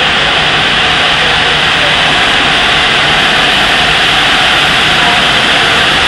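LNER A4 Pacific steam locomotive 60019 Bittern moving slowly with a loud, steady hiss of escaping steam that drowns out any separate exhaust beats.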